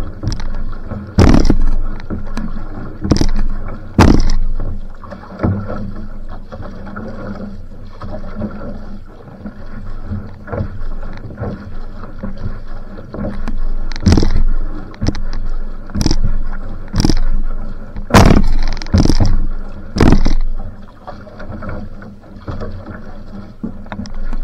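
Outrigger canoe paddled hard: water rushing and splashing along the hull with the strokes, broken by loud sharp hits every second or two at times.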